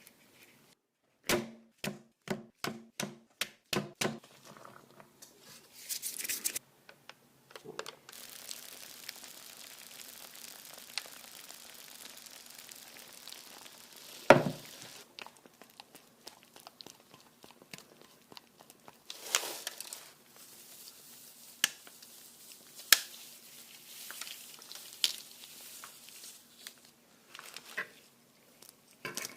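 Close-miked ASMR food and eating sounds: a quick run of about eight sharp clicks, then a steady crinkling hiss with scattered sharp snaps and crackles.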